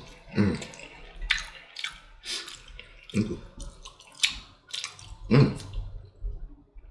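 Close-up wet mouth sounds of eating jerk chicken and rice: chewing and sharp lip smacks, with a fork picking in the bowl. A few short low hums break in, the loudest about five seconds in.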